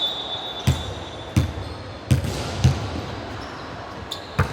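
Basketball bouncing on a hard gym floor: about five low bounces, the first three roughly 0.7 s apart, with a thin high squeak fading out about a second in.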